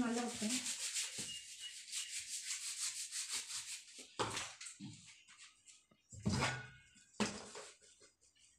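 Hands rubbing quickly back and forth over a freshly glued cardboard disc, smoothing the glued layer down. The rubbing gives way about halfway through to a few separate scrapes and knocks as the disc is handled.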